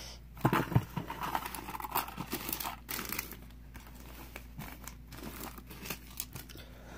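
Plastic lure packages and blister packs crinkling and rustling as they are handled and set down, in irregular spurts that thin out after about three seconds.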